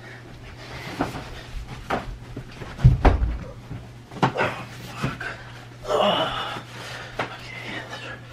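Rustling and knocking as a bag and small items are handled, with a heavy thud about three seconds in, over a steady low hum.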